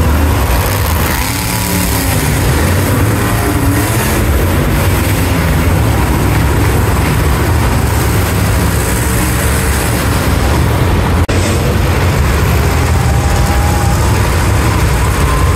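Monster truck engines running and revving, a loud deep rumble that fills the arena, with the sound cutting out for an instant about eleven seconds in.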